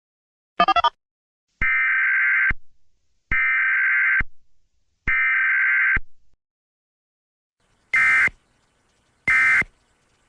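Emergency Alert System-style digital data tones. A quick run of chirps comes first, then three roughly one-second bursts of harsh warbling tones like an EAS SAME header, then two shorter, harsher bursts near the end.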